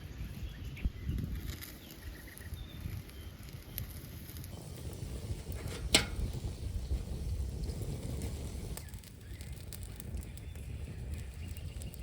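Wood fire burning with a low, steady rush and scattered crackles, one sharp crack about six seconds in.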